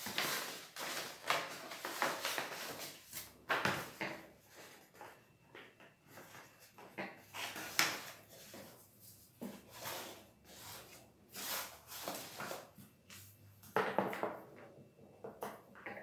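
Sheet of stiff paper being folded and creased by hand into a bag shape: irregular rustles and crackles, with short sharp handling sounds against the table.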